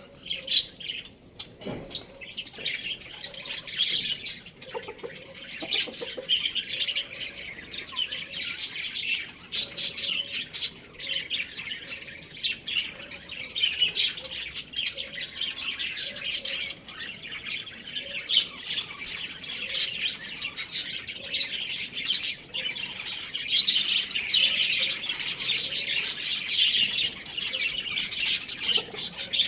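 Many small birds chirping and squawking at once: a dense, continuous chatter of short high calls with no pause.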